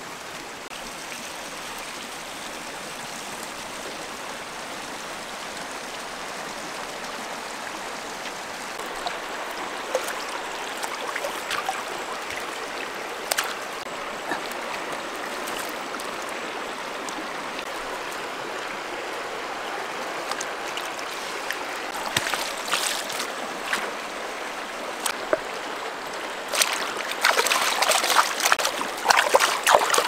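A shallow river running steadily over stones, with hands splashing in the water in the last few seconds as frogs are washed in the current.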